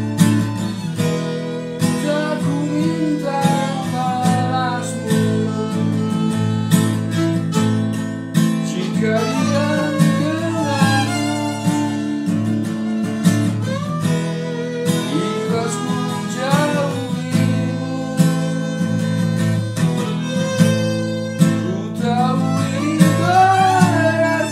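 Music: a melody over a steady beat.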